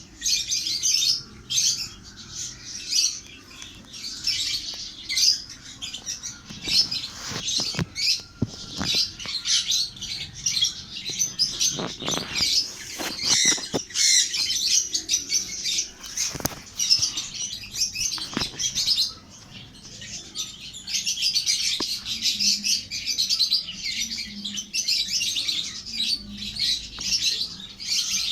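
Baby parrots chirping and squawking almost without pause in a dense, high-pitched chatter. Scattered knocks and rustles come through the calls between about 7 and 17 seconds in.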